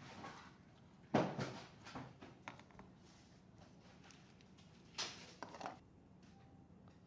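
Handling clicks and knocks from working on a laptop: a sharp knock about a second in, a few lighter clicks after it, and another cluster of clicks about five seconds in.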